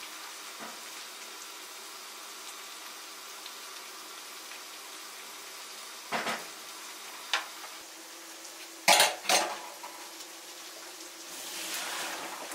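Rice boiling in a pot, stirred with a slotted wooden spoon, with a few sharp clatters of utensil and cookware; the two loudest come close together about two-thirds of the way through. Near the end a rush of water as the parboiled rice is poured from the pot into a metal colander in the sink to drain.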